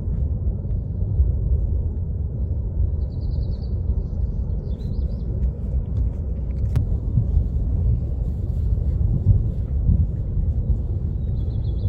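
Kilauea lava fountain making a continuous deep rumble, with a few faint high chirps at times.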